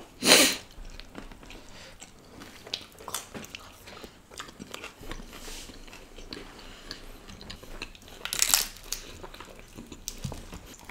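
Close-miked eating: chewing and biting into dry flatbread and curry, with wet mouth smacks and small clicks throughout. There are two louder moments, about a third of a second in and around eight and a half seconds.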